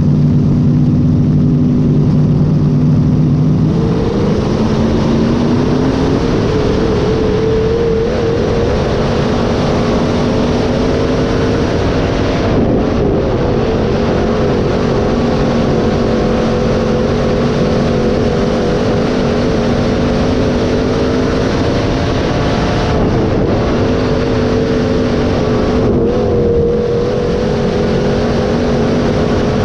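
Dirt-track sport mod race car's V8 engine running hard under racing load, heard on board. The engine note climbs about four seconds in, then holds high with a few brief dips as the throttle eases.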